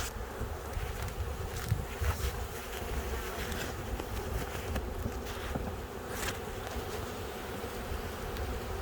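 Honeybees buzzing steadily around an open hive just stocked from a package, with a few sharp knocks of a hive tool against the wooden frames.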